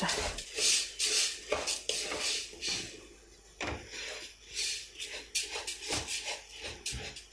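Wooden spoon scraping and stirring dry rice grains being fried in oil in a non-stick pot, in quick repeated strokes, about two or three a second. This is the rice being toasted until it stops sticking to the pot, before the water goes in.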